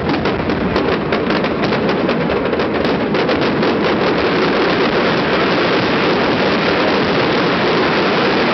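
Fireworks display with many shells bursting at once: a dense run of rapid crackling bangs for about the first three seconds, blending into one continuous rumble of overlapping explosions.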